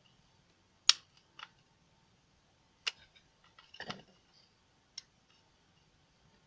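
Sharp metallic clicks of steel tweezers pressing the trip-button switch on a digital motorcycle speedometer's circuit board, about five clicks spaced irregularly, the first the loudest. The button is being tested because it isn't responding.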